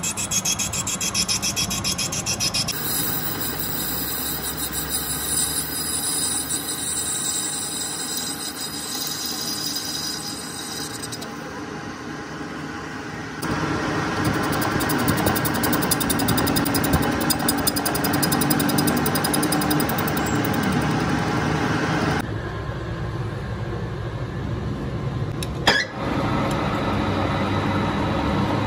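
Metal lathe running while a tool bit cuts a copper-alloy workpiece, a steady scraping hiss of the cut over the spinning chuck. The sound jumps abruptly in level and tone several times, with one sharp click about 26 seconds in.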